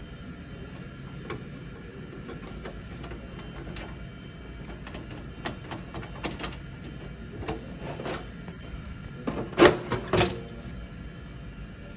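Clicks and knocks of plastic and metal parts being handled inside a desktop PC case as its power supply is taken out, sparse at first and busier later, with two louder knocks about three-quarters of the way through.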